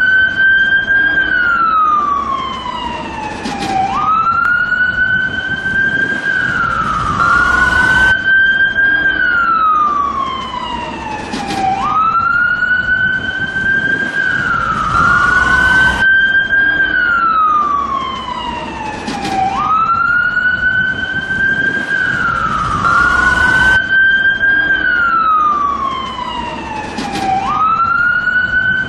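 Danish ambulance siren wailing: a tone that climbs quickly, then slides slowly down and jumps back up, about once every four seconds, over a low rumble of vehicle noise.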